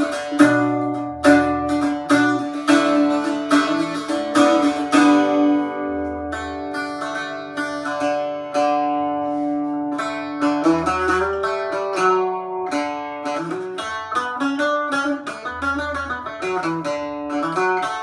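Roosebeck Irish bouzouki in G-D-A-D tuning being played: strummed chords ringing over low open strings, one chord left to ring for a few seconds, then quicker picked notes from about halfway through.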